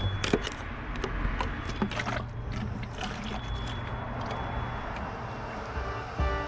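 Scattered knocks and clicks over a low steady hum that fades about five seconds in; music starts near the end.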